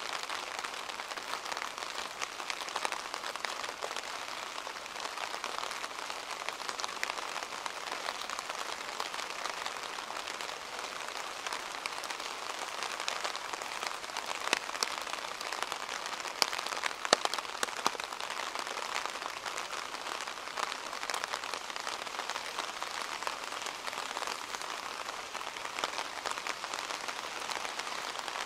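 Steady rain falling, an even hiss with many small sharp drop ticks throughout and a few louder drips a little past halfway.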